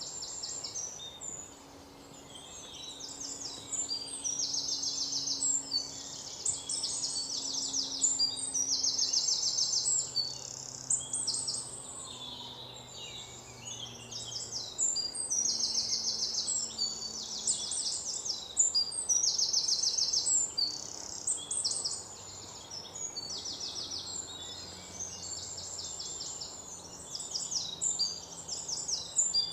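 Birds singing: high, rapid trilled phrases about a second long, repeated one after another.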